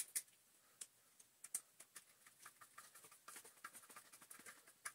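Faint, scattered small clicks and light scrapes of hands fitting the carbon brush and its screw back into a Dyson DC40 vacuum motor, with a sharper click at the start.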